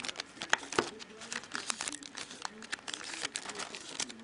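Stack of hockey trading cards being flipped through and shuffled by hand: a quick, irregular run of crisp clicks and rustles as card edges slide and snap past one another.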